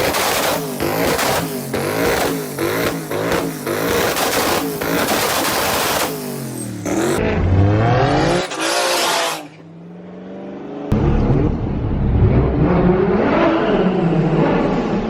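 Turbocharged car engines revving hard in several short back-to-back clips. First comes a fast run of rises and falls in the engine note with sharp bursts between them, then the note drops as the throttle closes, and it picks up again in the last few seconds.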